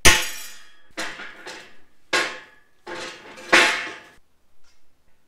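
Hammer striking a center punch on steel rectangular tubing, about five sharp metal strikes roughly a second apart, each with a short ring from the hollow tube. The punch marks are the hole centers for drilling.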